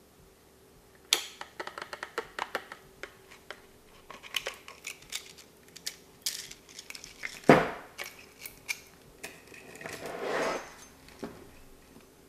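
Clicks and rattles of a plastic string-trimmer head being handled and nylon trimmer line being pulled out, with one loud knock about halfway through and a rustling swish a little later.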